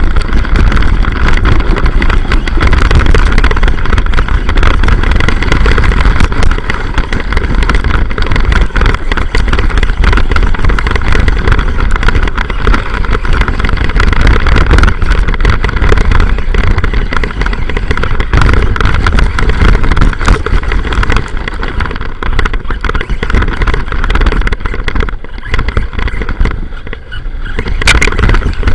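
Arrma Boost Vorteks RC car driving off-road, heard from up close: its electric motor and drivetrain run continuously over a heavy low rumble, with rattling and clicking from rough ground. It eases off briefly near the end.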